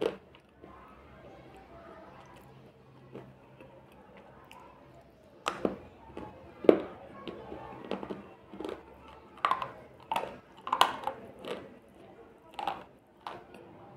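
Slate pencil being bitten and crunched between the teeth: a sharp crunch at the start, a quieter stretch of chewing, then from about five and a half seconds in a run of loud, irregular crunches, one or two a second.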